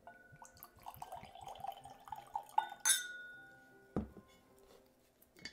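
Coffee liqueur poured from a glass bottle into a stemmed tasting glass, glugging unevenly for about three seconds. Then comes a sharp glass clink with a short ring, and about a second later a dull thud as the bottle is set down on a wooden table.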